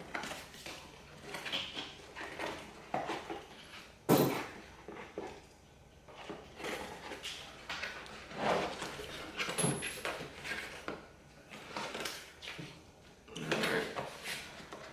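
A boxed car part being handled and unpacked: irregular rustling of packaging and light knocks, with one sharper knock about four seconds in.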